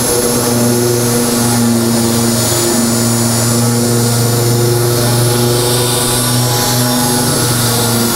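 Cordless Milwaukee drill driving a spot weld cutter into the steel sheet-metal seam, cutting out spot welds: a steady motor whine that dips briefly now and then as the cutter bites.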